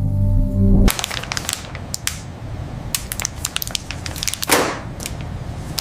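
Music cuts off about a second in, giving way to dense crunching and crackling with many sharp clicks. A louder swell of the crunching comes near the end.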